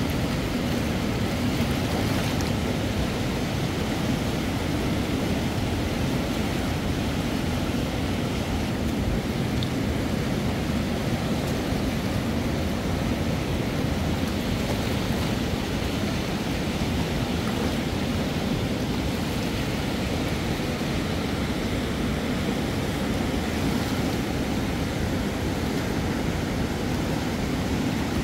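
Fast-flowing river rushing steadily over rapids, an even roar with no breaks.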